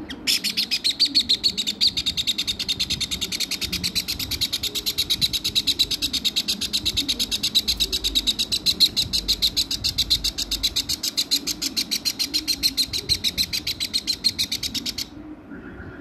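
Parrot chick giving a rapid, steady run of shrill begging chirps, about five a second, which stops suddenly about a second before the end.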